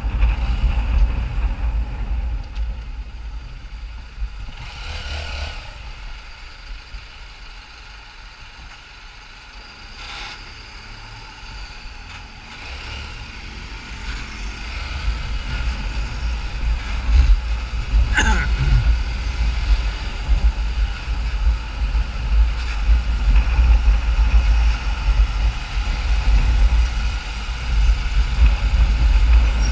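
Small motorcycle riding through city traffic: engine and wind rumble on the handlebar-mounted microphone, quieter for several seconds early on and building again as the bike picks up speed. About halfway through, a brief sound falls quickly in pitch.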